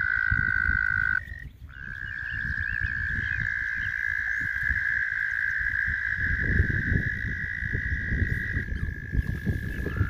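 Chorus of small pond frogs calling in a steady high trill, which breaks off briefly about a second in and resumes at a slightly higher pitch.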